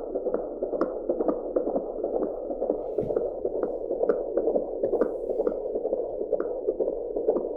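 Fetal heartbeat picked up by an AngelSounds handheld Doppler: a fast, even, whooshing pulse at about two and a half beats a second.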